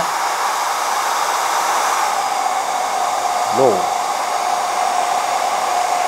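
ReFa Beautech hair dryer blowing with a steady rush of air on its high setting. About halfway through it is switched to low, and a steady tone comes in over the airflow.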